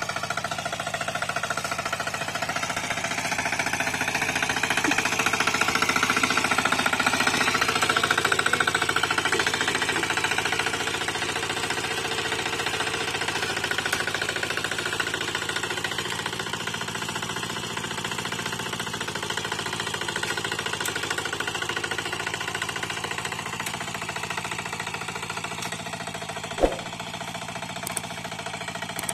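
Single-cylinder diesel engine of a two-wheel hand tractor running steadily with a rhythmic knocking chug while the machine is walked along. It swells louder for several seconds in the first third. A single sharp click comes near the end.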